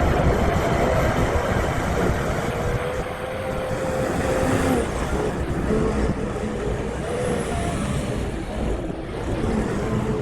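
Tractor engine running steadily under load, with a faint whine that wavers in pitch.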